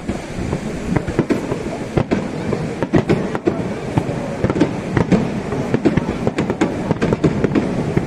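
Fireworks bursting and crackling in quick, irregular succession, many sharp cracks close together that grow denser after about two seconds.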